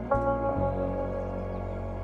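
Background music: slow ambient keyboard chords, a new chord struck about a tenth of a second in and held.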